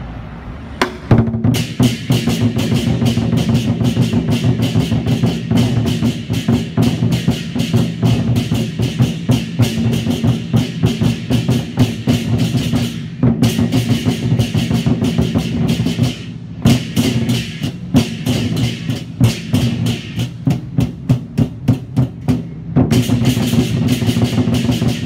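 Large Chinese barrel war drums beaten by several drummers with sticks, fast rolling strokes broken by a few short pauses and passages of separate accented beats, with hand cymbals clashing along.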